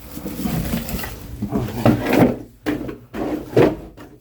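Split oak firewood logs knocking and clunking together as they are handled and stacked, with several sharp knocks in the second half.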